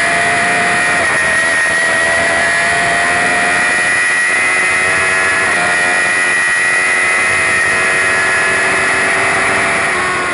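Suzuki GSX-R1000 inline-four engine at full throttle, heard onboard, pulling hard through the top gears with two quick upshifts, about a second in and about five and a half seconds in. Wind rush over the bike is steady underneath.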